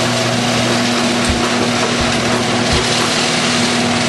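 Electric garage door opener running as the sectional door closes: a steady motor hum and rattle, with a few soft knocks spaced under a second apart.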